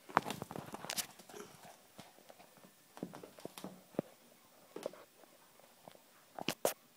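Irregular light knocks and scuffs of sneakers shifting and stepping on a hardwood floor, ending with two sharper knocks close together.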